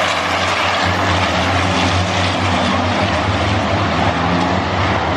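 Racing truck engines running loud and steady, a deep continuous drone with a dense rush of noise over it.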